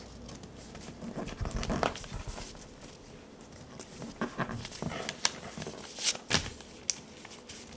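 Paper rustling and crackling in short, scattered bursts as a paper airplane is folded and unfolded by hand, with two sharper crackles about six seconds in.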